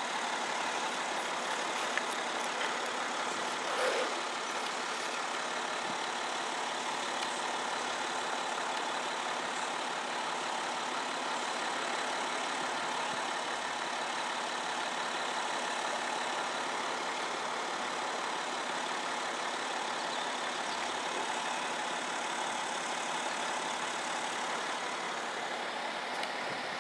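Steady, even road-traffic noise that does not rise or fall.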